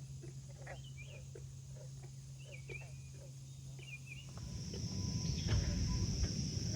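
Frogs calling in short, repeated croaks, with higher chirping calls above them. About four seconds in, this gives way to a louder, steady, high insect trill over a rumbling background noise.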